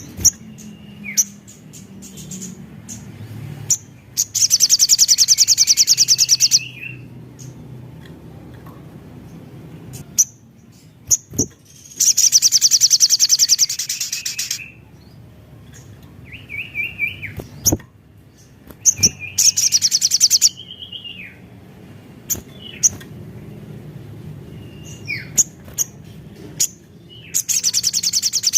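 A sogon, an Indonesian sunbird, singing vigorously. It gives loud, very high, rapid trills of about two seconds, four times, with sharp chip notes and short down-slurred whistles in between.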